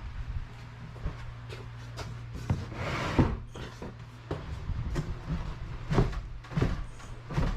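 Irregular knocks and clunks from hand work, over a steady low hum.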